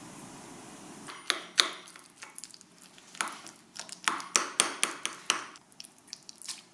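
A metal spoon clinks and scrapes against a ceramic bowl as steamed pumpkin is mashed. The irregular clicks and scrapes start about a second in and come thickest in the second half.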